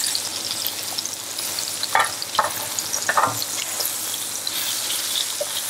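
Floured veal cutlets sizzling steadily in hot oil and butter in an aluminium frying pan, with a few light clicks of a fork against the pan as a slice is lifted to be turned.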